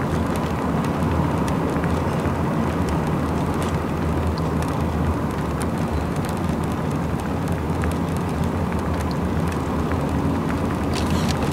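Steady road and engine drone heard from inside a car's cabin at highway speed, with a constant low hum and a few faint ticks.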